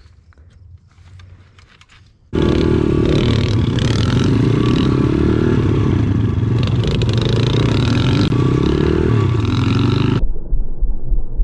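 A few faint clicks from hands working a pit bike's chain, then suddenly a small single-cylinder pit bike engine running loud while ridden, its pitch rising and falling as the throttle opens and closes. About ten seconds in, the sound cuts to a duller, gusty engine-and-wind noise.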